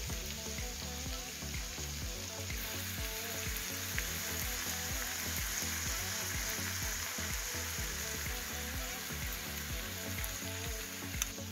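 Pak choi, tomatoes and onions frying in oil and sauce in a nonstick pan, a steady hissing sizzle.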